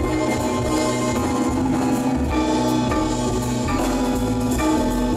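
Live jazz quartet playing: tenor saxophone, piano, double bass and drum kit, with held notes over a moving bass line and cymbals.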